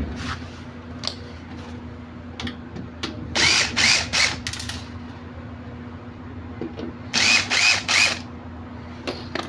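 A power drill run in short bursts, three quick runs about three seconds in and three more about seven seconds in, each with a rising whine.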